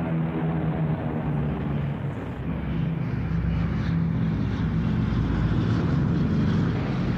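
Piston engines of B-29 bombers droning steadily with propeller noise, growing a little louder about halfway through.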